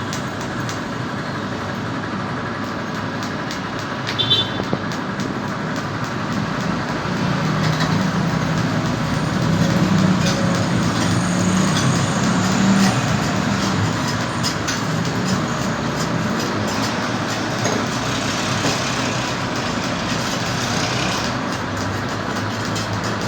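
LST 100's engine running through its replacement exhaust elbow and muffler, fitted after the stock part broke. It picks up in the middle for several seconds, then settles back to a steady run.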